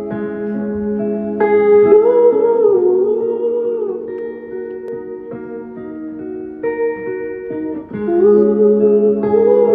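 Live music: sustained accompanying chords that change every second or so, with a man singing a wavering melody over them about two seconds in and again near the end.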